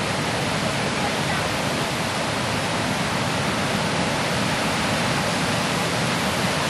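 River water rushing steadily past a jam of broken ice slabs during the spring ice breakup, an even rush with no distinct cracks or crashes.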